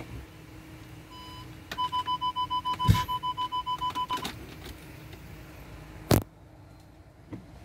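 Volkswagen instrument cluster warning chime: one short beep, then a rapid run of beeps, about seven a second, lasting a little over two seconds, with a knock partway through. A sharp click comes about six seconds in.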